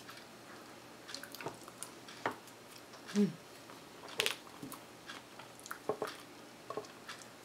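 A metal spoon scooping soft ice cream out of a paper pint carton: scattered small scrapes, squishes and taps, with a short closed-mouth "mm" hum about three seconds in and a sharper tap soon after as the carton is set down on the table.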